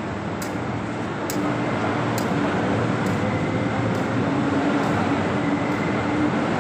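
MTR East Rail line electric train standing at the platform after arriving: a steady rumble with a faint electrical hum, growing a little louder about a second and a half in. Faint light ticks about once a second stop after about two seconds.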